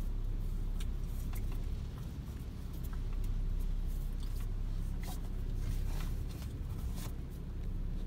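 Gusty hurricane wind and road noise heard from inside a moving car: a low rumble that swells and eases, with scattered light ticks.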